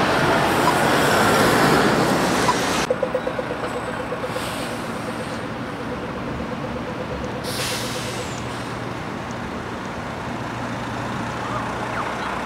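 City traffic at a road junction. A loud rush of passing vehicles cuts off sharply about three seconds in, then a single-deck city bus runs close by with its engine going. Its air brakes let out two short hisses of compressed air.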